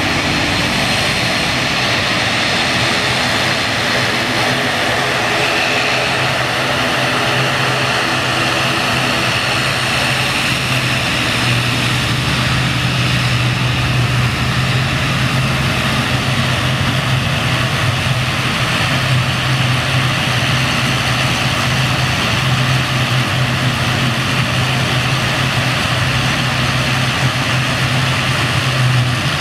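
Twin turboprop engines of an ATR 72-600 airliner running steadily on the runway: a steady low propeller drone with a wide hiss over it.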